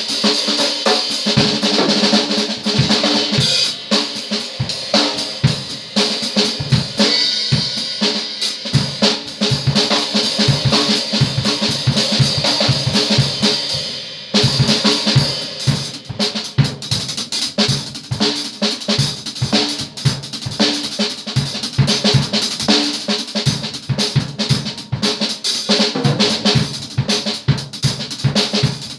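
Acoustic drum kit played in a busy, continuous pattern: toms, snare and bass drum hit fast under a steady wash of cymbals. The cymbal wash breaks off briefly about halfway through, then the playing resumes.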